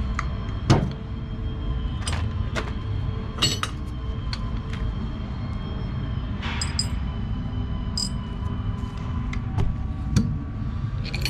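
Scattered small metal clicks and clinks from carburetor parts and hand tools being handled, the sharpest about a second in, over a steady low hum.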